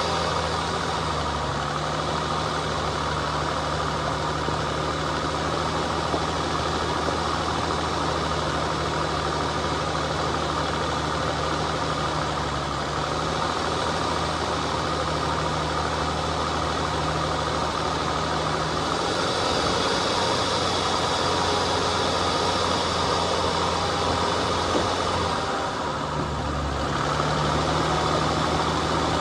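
Off-road vehicle's engine running at low, steady revs while it crawls a rough trail. The engine note shifts about two-thirds of the way through and settles again near the end.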